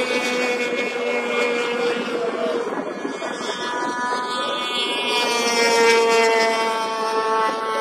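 Racing snowmobile engines running hard at high revs around an oval ice track, their whine sliding down in pitch and then rising again about halfway through as the sleds pass.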